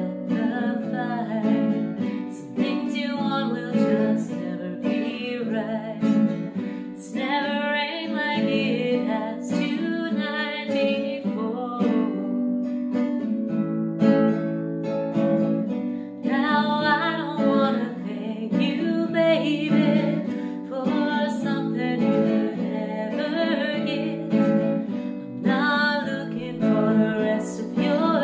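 A woman singing while playing a nylon-string classical guitar.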